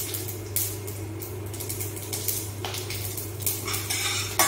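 Long metal spoon scraping and knocking against a stainless steel kadai, stirring cinnamon and cloves in hot oil while tempering. A few separate clinks and scrapes sound over a steady low hum.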